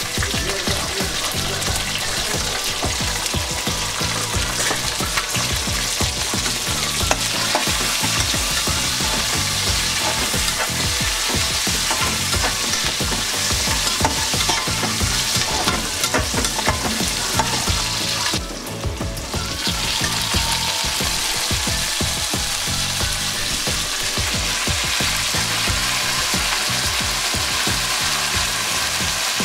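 Shallots, garlic, green chillies and brinjal sizzling in hot oil in an aluminium pressure cooker, stirred with a metal spatula that scrapes against the pan. The sizzle dips briefly about two-thirds of the way through.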